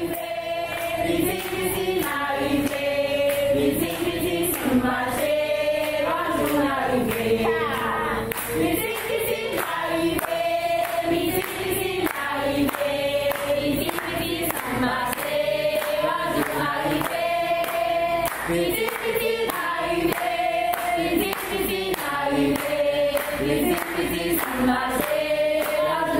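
A choir singing in several voices, with a steady rhythmic beat underneath.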